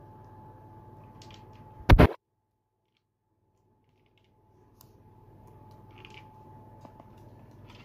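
Quiet kitchen room tone with a steady faint hum and a few light clicks. About two seconds in there is one brief, very loud thump, then about two seconds of dead silence before the room tone comes back.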